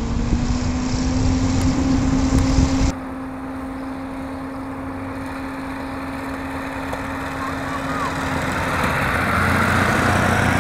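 Motorcycles and a van passing on a mountain road, with a steady engine note under the road noise. About three seconds in the sound cuts abruptly to a quieter recording, and it grows louder again near the end as more motorcycles ride past.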